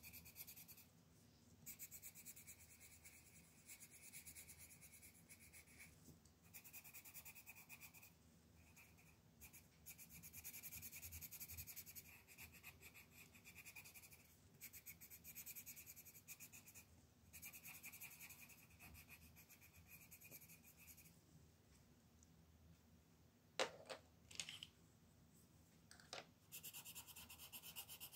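Colored pencil scratching on paper in quick back-and-forth shading strokes, in runs of a few seconds with short pauses between them. A few sharp clicks and taps come a little after two-thirds of the way through, as one pencil is put down and another picked up.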